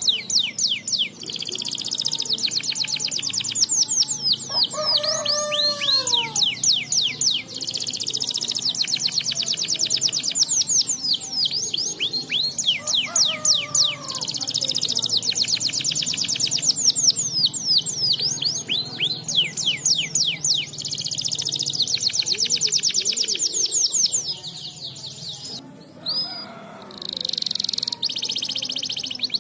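Canary singing a long, fast song of rapid rolling trills and repeated high notes, with a short break near the end before the trills resume.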